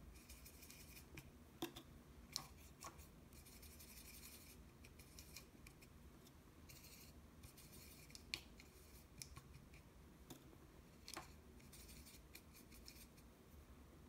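Faint scratchy swishing of a watercolour brush scrubbing paint in a plastic palette well, in several short spells, with a few sharp ticks of the brush against the palette.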